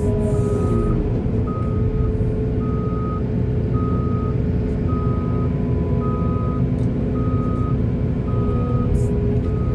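Heavy vehicle's reversing alarm beeping steadily about once a second over the low rumble of a diesel engine running.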